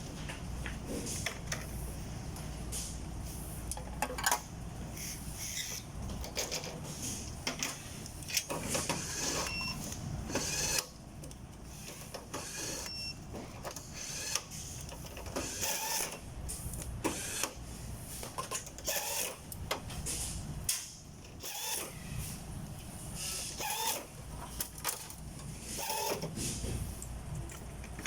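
Irregular clicks and knocks of objects being handled, over a steady low hum.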